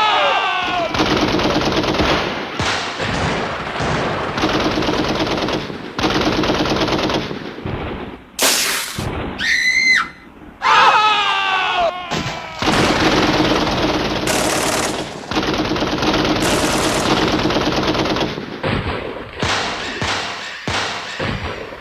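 Rapid automatic gunfire sound effects in long, dense bursts with a few short breaks. Falling whines cut in at the start and again about eleven seconds in, and a high tone slides down in pitch during a brief gap about ten seconds in.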